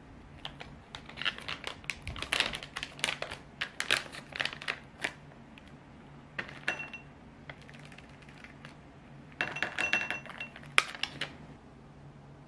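Plastic chocolate pouch crinkling as it is handled and opened, then small chocolate pieces tipped into a small glass bowl, clinking against the glass with a short ringing, once about six and a half seconds in and again in a quick run near ten seconds.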